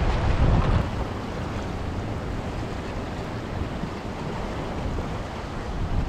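Waves washing at the water's edge, with wind buffeting the microphone; the heavy wind rumble eases about a second in.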